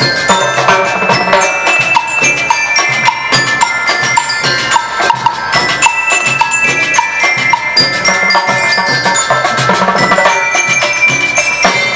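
A school marching band playing: bell lyres (marching glockenspiels) ring out a melody over snare drums, bass drum and a drum kit.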